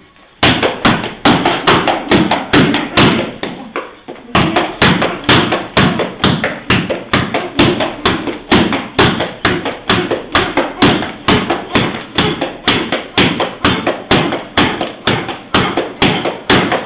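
Rapid, repeated kicks landing on a handheld kick shield: a steady run of sharp thuds, about two to three a second, starting about half a second in.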